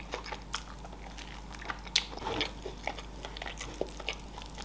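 A person chewing and biting meat off barbecue-sauced pork ribs, with irregular sharp wet mouth clicks.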